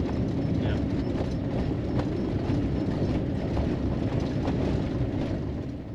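Ram ProMaster camper van driving on a gravel road, heard from inside the cab: a steady rumble of tyres on gravel with light clicks and rattles. A squeak comes from the front driver's-side wheel, which the owner thinks might be a brake caliper.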